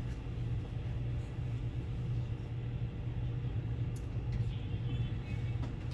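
A steady low rumble, with a couple of faint knocks about four seconds in.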